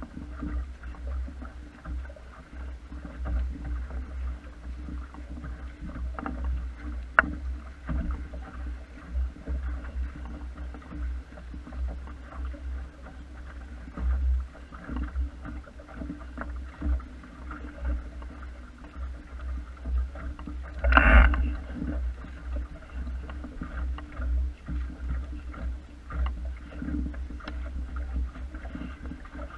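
Wind buffeting the microphone over water lapping and slapping against the wooden hull of a small sailing dinghy under way, with scattered light knocks. There is one louder burst of noise about two-thirds of the way through.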